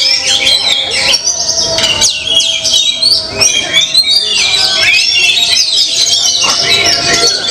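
Many caged songbirds singing at once on a contest hanging pole: a dense chorus of overlapping fast chirps, trills and whistles.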